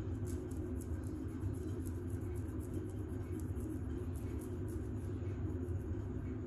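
Long fingernails scratching a flaky scalp in quick, repeated strokes, several a second, faint and thin in sound. A steady low rumble underlies it and is louder than the scratching.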